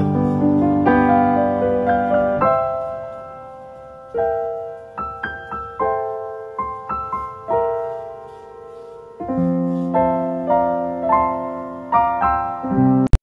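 Background piano music: a slow, gentle melody of notes and chords, each struck and fading, dying away briefly about three seconds in before picking up again. A sudden loud click right at the end.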